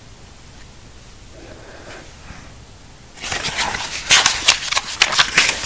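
Paper pages of a picture book being turned and handled close to the microphone: a fast run of rustles and crackles starting about three seconds in.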